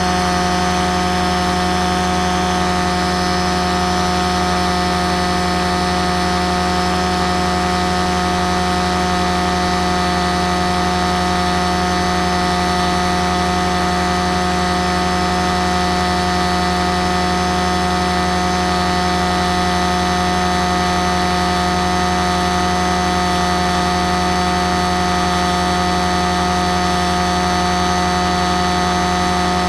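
Model aircraft's motor running at a steady speed, heard close up from on board: a constant drone with several steady tones that holds level throughout.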